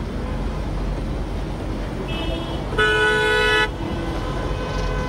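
A car horn sounds one loud blast, just under a second long, about three seconds in, over a steady low rumble of street traffic.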